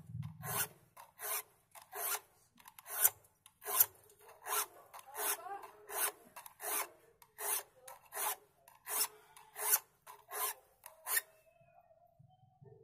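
A file rasping across the teeth of a hand saw in short, regular strokes, a little over one a second, sharpening the teeth. The strokes stop about eleven seconds in.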